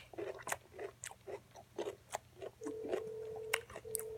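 Close-miked chewing and biting, heard as a quick series of short, wet crunches and clicks. A steady low hum runs underneath, drops out for a while, and comes back about two and a half seconds in.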